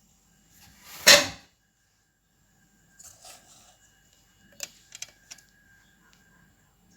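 A short, loud clatter about a second in, then faint rustling and a few light clicks and taps around the middle.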